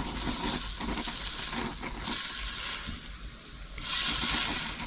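Hot tempering oil sizzling in a bowl of cucumber chutney, a hiss that swells and fades in three surges.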